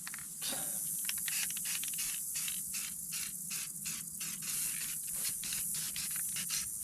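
Aerosol can of Rust-Oleum almond spray paint spraying: a steady hiss that starts about half a second in, with a quick run of short ticks or rattles through it.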